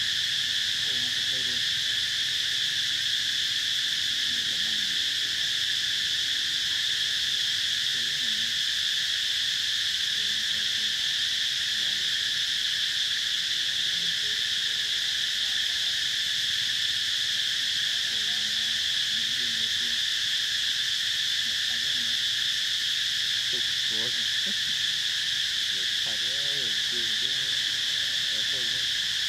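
Continuous insect chorus: a steady, unbroken high-pitched buzzing drone that holds the same level throughout.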